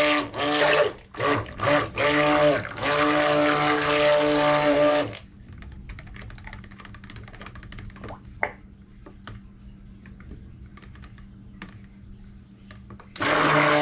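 Stick blender motor pulsed in short bursts, then run steadily in a pitcher of cold process soap batter, mixing it. It stops about five seconds in, leaving faint clicks and one sharper click, and starts up again near the end.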